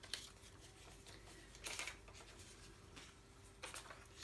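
Faint handling noise of a tissue and a paper card against a whiteboard: three brief rustling scuffs, the loudest about two seconds in.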